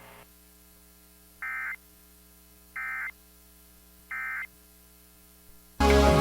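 NOAA Weather Radio EAS end-of-message code: three short bursts of warbling digital data tones (the SAME 'NNNN' signal), about 1.4 s apart, over a faint steady hum. Loud music starts near the end.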